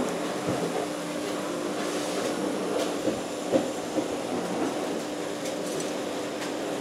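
Air blown through a metal pipe into a charcoal smelting fire: a steady rush of forced air with a constant hum, as the fire is driven hotter to pre-heat the clay smelting bowl. A few sharp cracks and clicks come from the coals a few seconds in.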